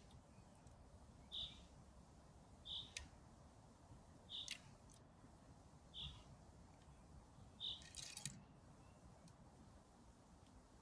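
A bird calling a single short, high note over and over, about once every second and a half, with a few faint clicks in between.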